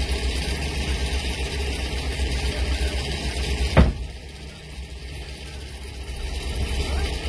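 Vehicle engines idling in stopped traffic, a steady low rumble. A single sharp knock comes a little before four seconds in, after which everything is quieter for a couple of seconds.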